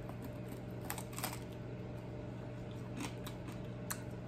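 Close-up eating sounds of crispy fried chicken wing being nibbled off the bone: a few sharp, crisp crunches spaced irregularly, over a steady low hum.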